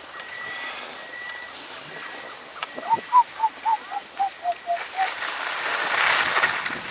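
A run of about ten short yelping calls, about four a second and falling slightly in pitch, about three seconds in; then skis hissing on groomed snow as the skier heads downhill, growing louder near the end.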